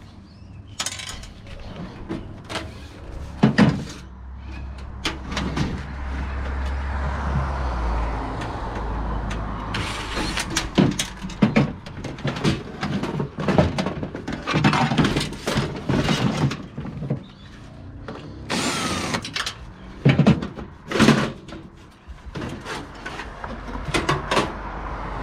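Sheet-metal clanks, knocks and rattles of a desktop computer tower being taken apart by hand and its parts handled, with a low rumble a few seconds in.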